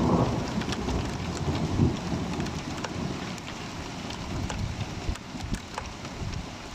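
Thunder from a close lightning strike rumbling and fading away, with a swell about two seconds in, over steady heavy rain with scattered drops ticking.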